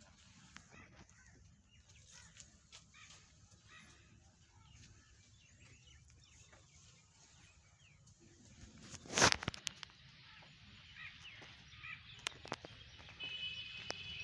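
Faint birds chirping, with one sharp knock about nine seconds in.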